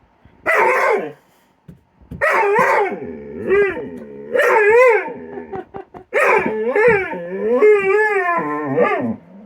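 A dog's play vocalizations: a short bark-like burst, then a string of long, wavering howl-like yowls as it playfully snaps at a cat.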